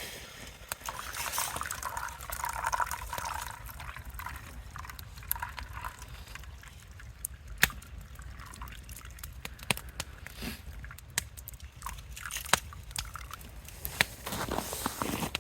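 Liquid pouring for the first few seconds, followed by scattered small clicks and knocks.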